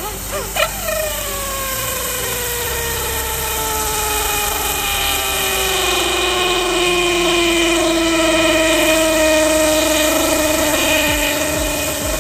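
A motor running with a whine whose pitch slides steadily down over the first several seconds, then levels off and holds.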